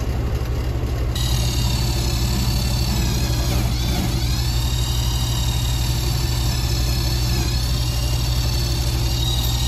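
A cordless vacuum pump runs steadily with a low hum. About a second in, a Milwaukee M12 cordless tool starts up with a high whine, its pitch dipping briefly under load twice, around the middle and again later on.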